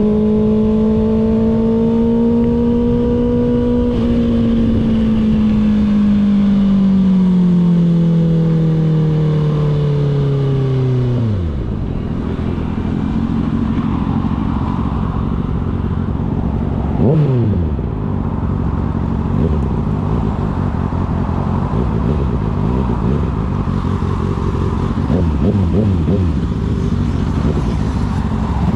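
Kawasaki ZX-6R 636 cc inline-four engine holding a steady high note that sags slowly in pitch, then drops off sharply as the throttle closes, running on at low revs. A quick rev blip partway through the low-rev stretch.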